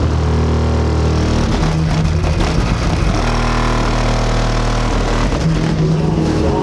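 Bass-heavy music playing loud through a car's aftermarket amplifier and speakers, deep bass notes changing pitch every second or so.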